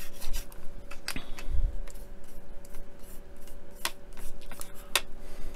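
Small paintbrush dabbing and spreading PVA glue over a plastic model deck part: faint scratching with a few light clicks.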